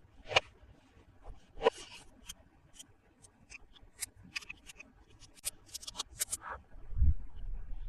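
Hands handling toy packaging: two rustling scrapes, then a run of small sharp clicks at about three to four a second, and a low thump near the end.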